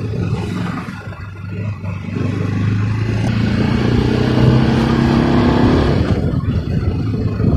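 TVS Apache RR 310's single-cylinder engine running as the motorcycle is ridden, rising gently in pitch under throttle and then falling away about six seconds in as the throttle is closed.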